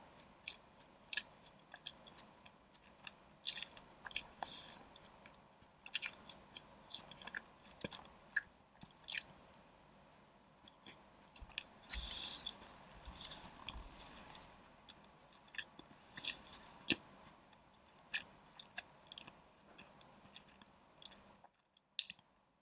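Close-miked chewing and biting of small soft cakes, with sharp wet mouth clicks and smacks at irregular intervals. There is a longer, denser stretch of noise about halfway through.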